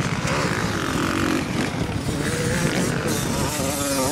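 Small two-stroke Kawasaki youth motocross bike running through a rutted corner, its engine pitch rising and falling as the rider works the throttle. The revs climb sharply near the end.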